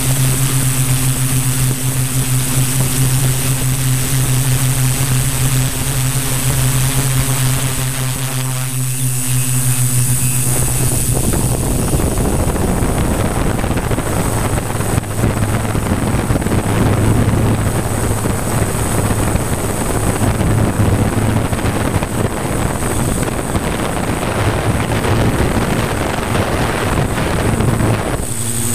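A multicopter's electric motors and 15x5.5 propellers running in flight, a steady hum close to the microphone. About eleven seconds in the clean hum gives way to a rougher rushing noise that lasts until near the end, when the steady hum comes back.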